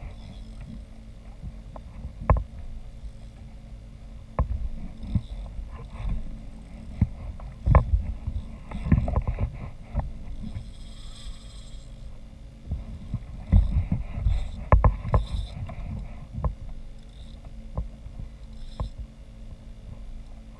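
Irregular knocks and bumps on a fishing kayak's hull, coming in clusters with quiet gaps between.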